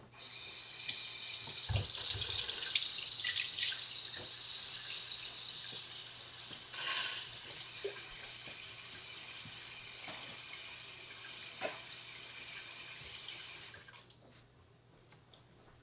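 Water tap running into a sink. It gushes harder for the first few seconds, then runs more gently, and is turned off near the end.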